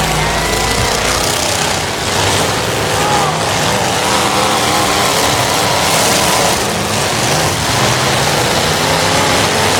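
Several demolition derby cars' engines running and revving together, with wavering engine pitches over a dense, steady din.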